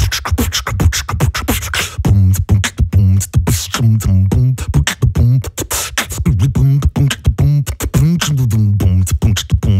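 A man beatboxing into a studio microphone: a fast run of mouth-made kick, snare and click sounds woven with a hummed low bass line.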